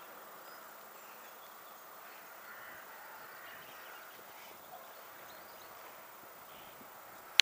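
Faint, steady outdoor ambience at a lakeside: an even low hiss with nothing standing out, ending in one sharp click.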